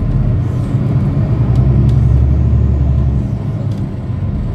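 Car engine and road noise, a steady low rumble that swells about a third of the way in and eases off near the end.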